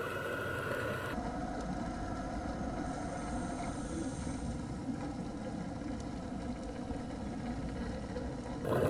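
Steady underwater noise with a low mechanical hum, like a distant boat engine carried through the water.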